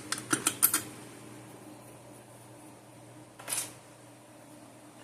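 A few light metallic clicks and taps of a fire alarm pull station being handled in the first second, then a steady faint hum, with one short brushing swish about three and a half seconds in.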